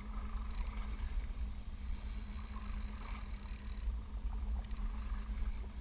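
Wind rumbling on the microphone over a steady low hum aboard a small fishing boat, with a faint hiss from about half a second to four seconds in.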